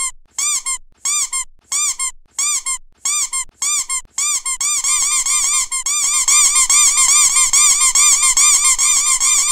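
A squeaky toy squeezed again and again, each squeak rising and falling in pitch. The squeaks come about twice a second at first, then speed up into a fast, almost unbroken run from about five seconds in.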